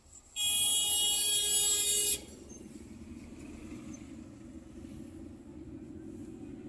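A vehicle horn sounds once, steady for nearly two seconds, about half a second in. After it, steady engine and tyre noise of the moving car, heard from inside the cabin.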